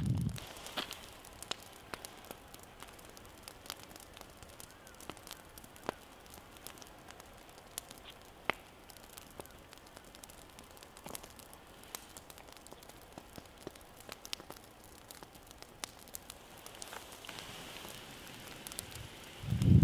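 Wood-gas stove fire crackling faintly with scattered sharp pops. Near the end, green onions start sizzling in oil in a cast-iron skillet, and a loud low thump comes right at the very end.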